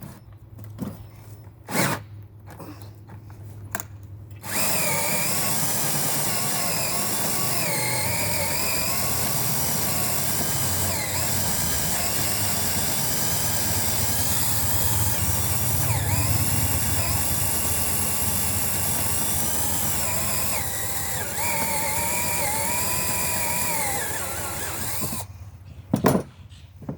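DeWalt DC970 18-volt cordless drill boring a hole through a wooden board, running for about twenty seconds under heavy load; its motor whine sags and recovers several times as the bit bites, then it stops. A few handling knocks come before it starts.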